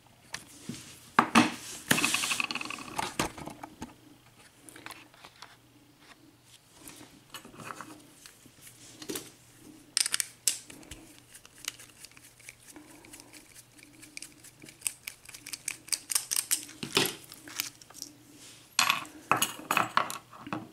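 Small metallic clicks, taps and clinks of a picked padlock and steel tools being handled as the lock is taken apart. A jingling rattle comes about a second in, then scattered clicks, with a quick run of clicks near the end.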